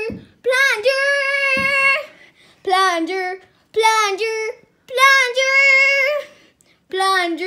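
A high child's voice singing a string of short phrases with held, slightly wavering notes and brief pauses between them.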